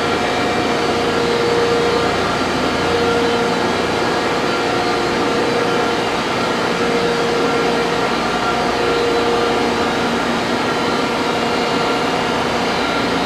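Industrial machinery running steadily, a continuous mechanical hum with a tone that swells and fades about every two seconds.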